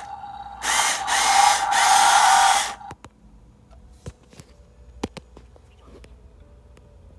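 Toy State Road Rippers Piston Thumper F-150 Raptor toy truck making its whirring, revving engine noise in a short spurt and then a longer one, stopping about three seconds in. After that, a few light clicks and knocks from handling the toy.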